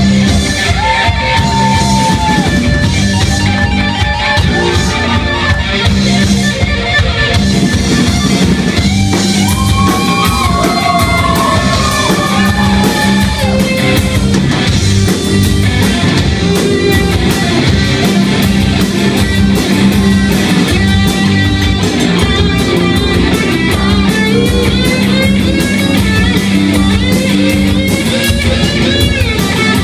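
Live rock band mid-song: a lead electric guitar, a Stratocaster-style guitar through a Marshall amp, plays a solo full of string bends over bass and a drum kit.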